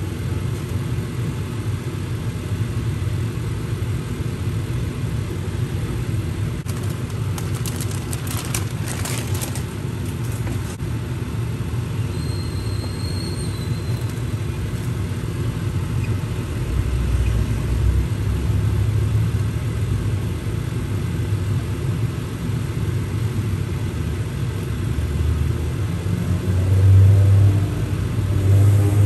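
A steady low rumble throughout. About eight seconds in there is a short run of clicks and scrapes as a spatula works noodles in a pan.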